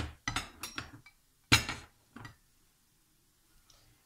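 Ceramic bowl handled and set down on a glass-ceramic hob, with a metal spoon and tongs clinking in it: a few sharp clinks and knocks in the first two seconds or so, the loudest about a second and a half in.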